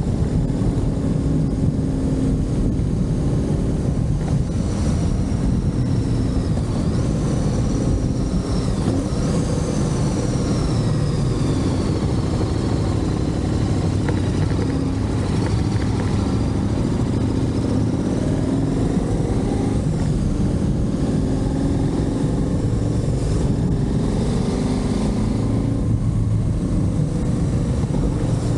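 Motorcycle engine running while riding, its pitch rising and falling with the throttle over a steady rush of wind and road noise. A faint high whine slides downward for a stretch in the first half.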